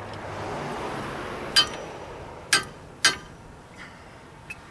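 Three sharp metallic clinks with a short ring: the first about a second and a half in, then two more about a second and half a second apart. They come from metal tools and brake parts knocking together during a brake pad change. Under them is a broad background noise that swells and fades over the first two seconds.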